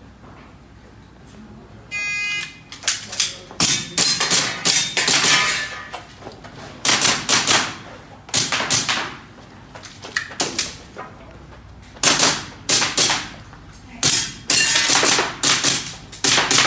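A shot-timer start beep, followed about a second later by a long string of rapid airsoft pistol shots fired in quick clusters.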